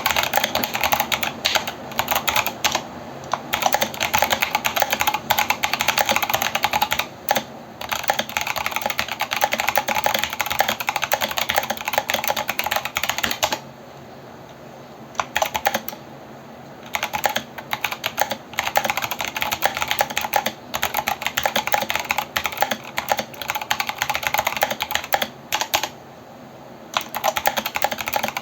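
Continuous typing on a mechanical keyboard with Kailh Box Brown switches and MT3 keycaps, a quick run of key clacks with a few short pauses, the longest of about a second and a half near the middle.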